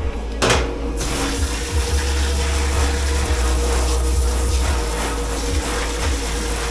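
A clunk, then about a second in water starts running hard into a sink with a loud, steady hiss. A steady machine hum sits underneath.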